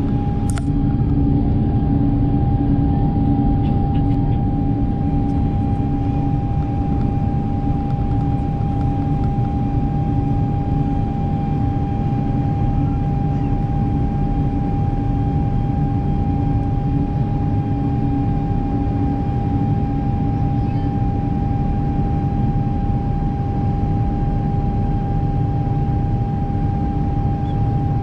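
Airbus A350-1000 cabin noise from a window seat: the Rolls-Royce Trent XWB engines and airflow make a steady rumble, with one steady whine held throughout.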